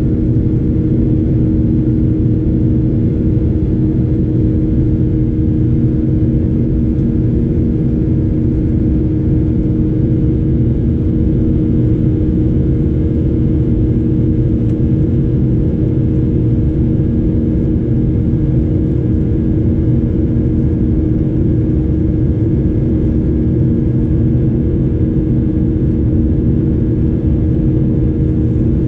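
Boeing 737-800's CFM56-7B jet engines heard from inside the cabin: a steady low drone with a constant hum in it.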